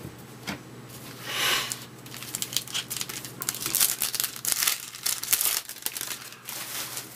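A baseball card pack wrapper being torn open and crinkled by hand: a run of short rips and crinkles, loudest around the middle.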